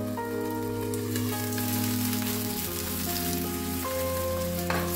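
Potato slices frying in oil in a pan, sizzling, with the sizzle growing brighter about a second in as the lid comes off. A light knock near the end, over background music of sustained notes.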